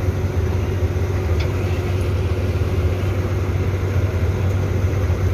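A large diesel farm-machine engine idling steadily with an even, low rumble.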